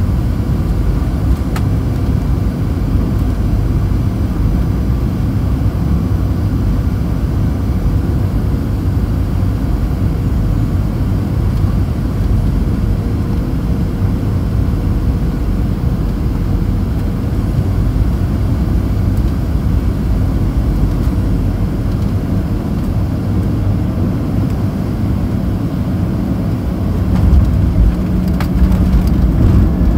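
Cabin noise inside a Southwest Boeing 737-700 on final approach: a steady rush of airflow and the CFM56 engines, with a faint steady whine that fades out about two-thirds of the way through. Near the end the noise grows louder and deeper as the jet comes down close to the runway.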